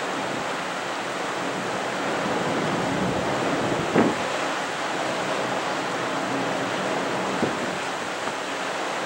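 Steady hiss of wind and water, with a faint low hum underneath and one brief knock about four seconds in.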